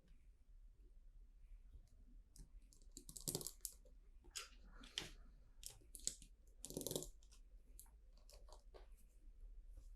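Faint clicks and rattles of small plastic LEGO bricks being handled and pressed together, with two louder rattles about three and seven seconds in.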